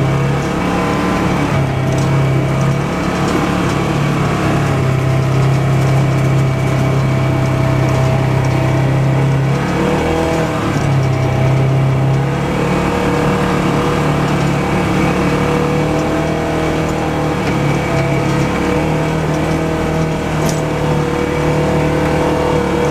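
Vehicle engine running steadily as it creeps along a dirt trail, its pitch shifting a little about ten seconds in and again a couple of seconds later.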